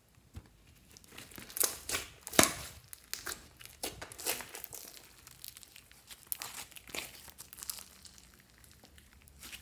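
Clear slime mixed with floam beads and glitter being squeezed and stretched by hand, giving irregular crackling and popping. The crackles are loudest about two seconds in, then carry on more softly.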